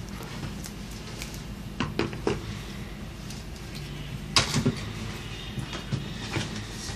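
Plastic Play-Doh toy tools and parts being handled on a table: scattered light knocks and clicks, the loudest about four and a half seconds in.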